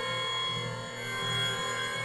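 Synthesizer pad from the u-he Repro-5, 'EH Glassnight Pad' preset: a held chord of bright, glassy tones with a low pulsing underneath, a bit under twice a second.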